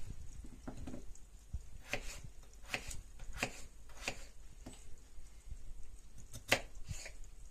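Kitchen knife slicing raw potatoes on a wooden cutting board: irregular knocks of the blade hitting the board, about one or two a second, the loudest a little before the end.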